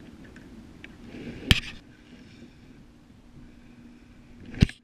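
Two sharp knocks, one about a second and a half in and one near the end, over a faint background: fishing tackle being handled aboard a kayak.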